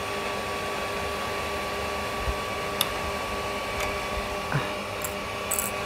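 Steady whirring hum of an Ender 3 3D printer's cooling fans, with a few light clicks as metal binder clips holding the print bed are handled.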